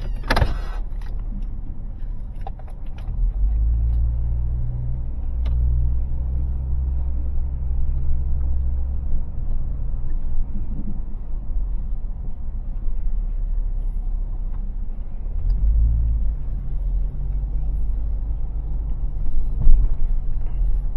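A vehicle being driven, with low engine and road rumble that swells for several seconds as it pulls away. There is a sharp knock just after the start.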